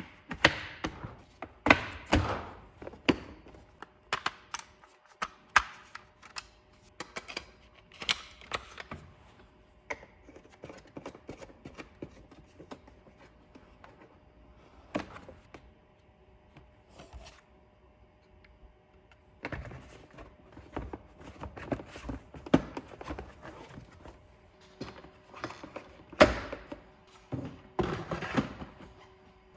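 Hard plastic parts of a Kärcher K2 pressure washer being handled and clicked together during assembly: an irregular string of knocks, clicks and rattles, with a few louder thumps near the start and again late on.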